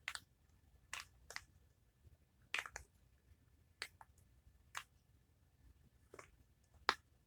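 Silicone pop-it fidget bubbles being pressed through, giving about nine short, quiet pops at irregular intervals.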